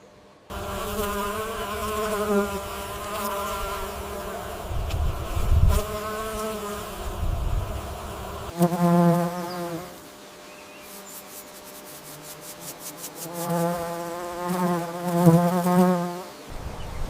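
A flying insect buzzing, a wavering drone that comes and goes in several stretches, with an abrupt change about eight and a half seconds in.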